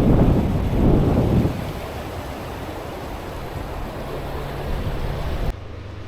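Steady rush of high water pouring over a dam gate, with wind buffeting the microphone for the first second and a half. The sound drops off suddenly near the end.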